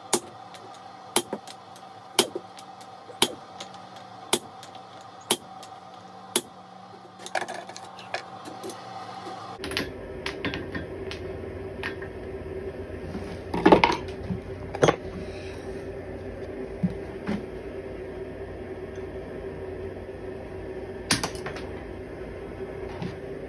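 Hand hammer striking a steel punch driven into a hot steel block on an anvil, punching the eye of a hammer head: sharp metallic blows about once a second, then lighter taps. After a shift in the background a steady hum comes in, with a few scattered heavier blows, the loudest about halfway through.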